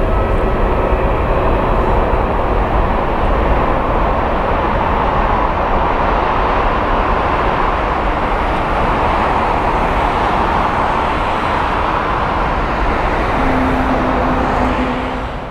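Twin-engine widebody jet airliner taking off and climbing away, its engines at takeoff thrust: a steady, dense roar that eases off near the end.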